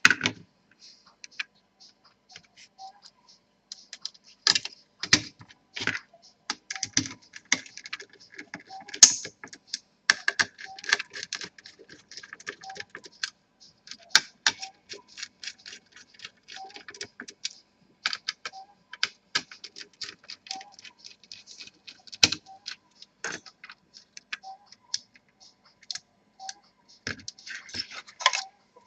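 Irregular clicks, taps and small knocks of a laptop's plastic and metal parts being handled and fitted back together during reassembly, with a few louder knocks now and then.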